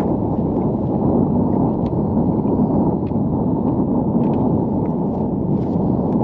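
Wind buffeting the microphone: a loud, steady low rumble, with a few faint ticks scattered through it.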